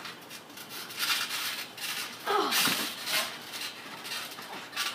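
Scuffling and rubbing of wrestlers' bodies and clothes against the ring mat, in several short noisy bursts, with a brief falling-pitched sound about two and a half seconds in.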